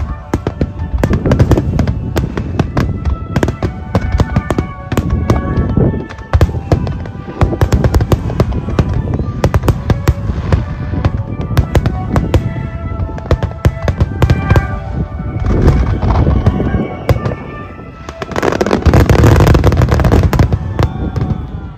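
Aerial firework shells bursting in a dense barrage, a rapid string of bangs and crackles, with music playing alongside. The densest, loudest volley comes near the end.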